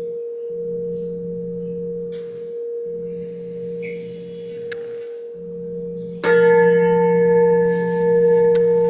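A tuned metal pipe ringing one steady healing tone, with a lower hum that cuts in and out about every two seconds. About six seconds in, the pipe is struck again: a louder, brighter ring full of overtones over the same note, which then rings on.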